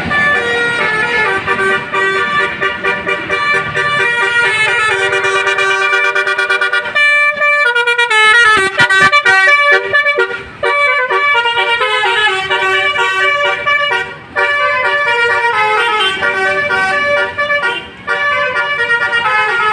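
Indonesian 'basuri' bus horn, a multi-tone musical air horn of the telolet kind, playing a loud tune of stepping notes with several tones sounding together. It breaks off briefly about ten, fourteen and eighteen seconds in.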